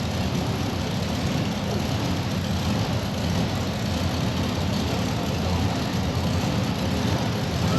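Modified pulling tractor's engine running loud and steady in an arena.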